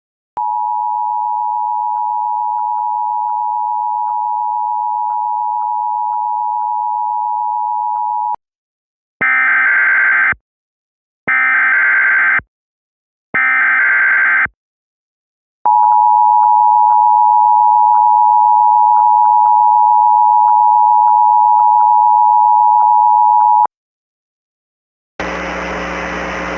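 Emergency Alert System tones. A steady alert tone near 1 kHz plays for about eight seconds, then come three short bursts of warbling SAME header data, each about a second long and a second apart, then the steady alert tone again for about eight seconds. Near the end a hiss of static starts.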